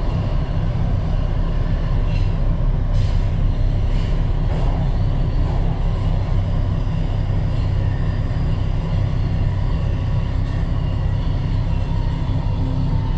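Alstom Metropolis driverless metro train of Budapest's M4 line running through a tunnel, heard from inside the front car: a steady low rumble, with a few faint clicks a few seconds in.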